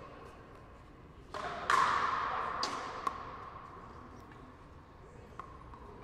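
Frontenis rally: a hollow rubber ball struck by rackets and cracking off the frontón wall, each hit ringing on in the hall's reverberation. The loudest pair of hits comes a little under two seconds in, followed by a few lighter ones.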